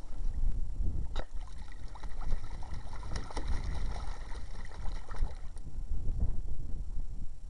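White Chinese goose bathing in a shallow plastic kiddie pool, splashing and sloshing the water with its body. Wind rumbles on the microphone.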